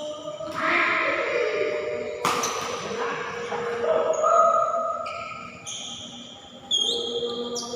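Badminton racket strikes on a shuttlecock, two sharp hits about two seconds apart, over a bed of sustained shifting tones.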